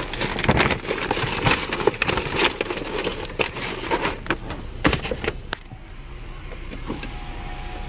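Crackling, rustling handling noise with many sharp clicks as the camera is moved about against clothing. It stops suddenly about six seconds in, leaving a quieter steady background.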